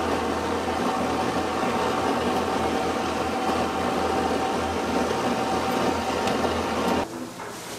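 Steady whirring machine noise and hum of kitchen equipment, with a faint steady whine, cutting off sharply about seven seconds in.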